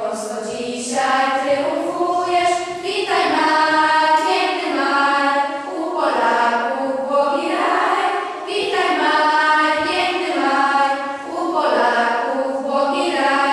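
A group of schoolgirls singing together, a slow song in held notes and phrases a few seconds long; the last phrase dies away at the very end.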